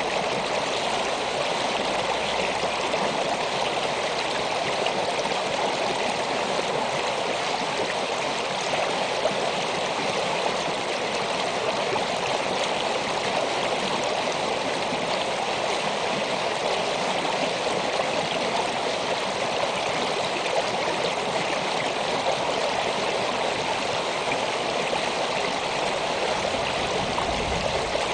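Shallow creek running steadily over and around rocks: a continuous, even rush of water, swollen with winter meltwater.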